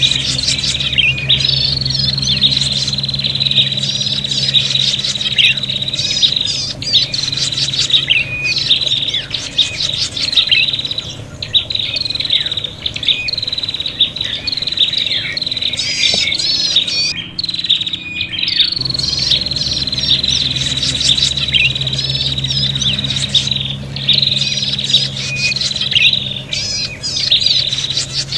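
Prenjak (prinia) birds calling busily and excitedly: rapid chattering, trilled notes over a long, thin whistle that falls slightly in pitch. This is the agitated, 'fighting' song played as a lure to draw in wild prenjak. A low hum runs underneath in places.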